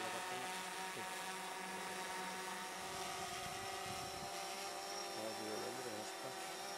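Quadcopter camera drone hovering, its four propellers giving a steady buzzing whine made of several pitches at once.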